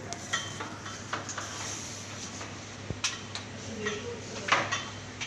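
Scattered clinks and knocks of parts and tools being handled at a wall-mounted split air conditioner, the loudest about four and a half seconds in, over a steady low hum.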